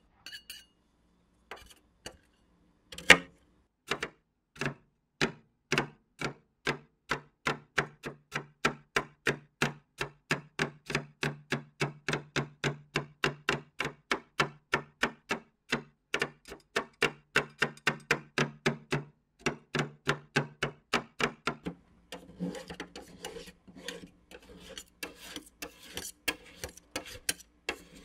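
Two steel spatulas chopping cheese snack sticks into liquid ice cream base on the steel plate of a rolled ice cream cold plate: sharp clacks of metal on metal, a few scattered at first, then a steady rhythm of about two to three a second. After about 22 seconds the strikes give way to denser scraping as the frozen mix is spread and worked across the plate.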